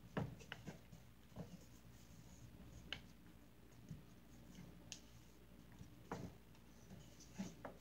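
Faint, scattered clicks and scrapes, about one every second, from glue slime being stirred in a clear plastic tub.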